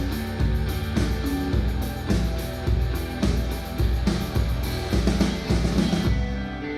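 Rock music with drums and guitar playing through Edifier S1000MKII bookshelf speakers, picked up by a microphone in the room. A steady beat runs until about six seconds in, when the drums stop and the music thins to held guitar chords.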